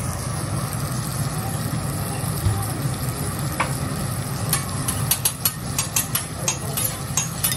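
Butter and seasoning sizzling on a steel teppanyaki griddle. In the second half a metal spatula and fork clack and scrape against the hot plate in a quick run of sharp taps.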